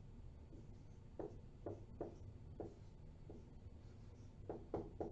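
A pen drawing by hand: faint, short separate strokes at an uneven pace, with three coming close together near the end.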